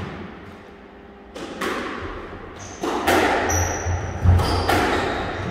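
Squash rally: the ball is struck by the rackets and hits the court walls in a series of sharp, echoing cracks, coming roughly in pairs, with a short high shoe squeak on the court floor in the middle.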